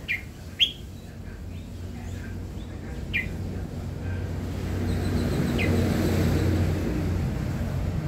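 Red-whiskered bulbul calling: a few short, sharp falling notes, two in quick succession at the start, another about three seconds in and one more near six seconds. A low rumble builds through the second half.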